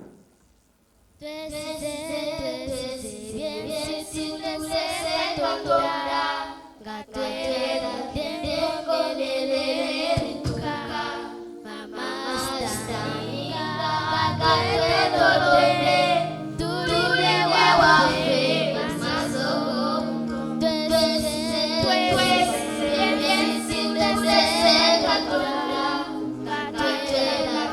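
Group of children singing a song together, starting about a second in.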